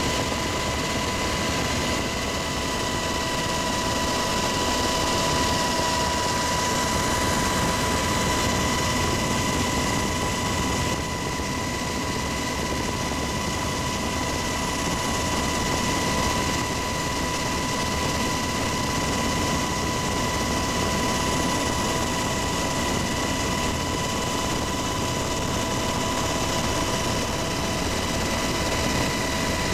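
Cabin noise inside a UH-60 Black Hawk helicopter in cruise flight: a steady rush of rotor, engine and air noise with a constant high-pitched whine running through it.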